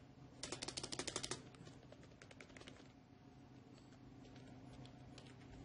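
Keys of an Ensoho budget wireless membrane (non-mechanical) keyboard being pressed by hand: a fast flurry of about a dozen clicks near the start, then a few scattered key presses.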